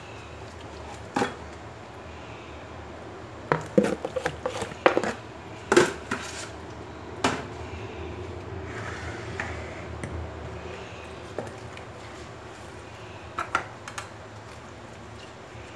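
Knocks and clatter of a plastic mixing bowl being set down and moved about on a kitchen counter: a single knock about a second in, a cluster of sharp knocks a few seconds later, and two more near the end, over a steady low hum.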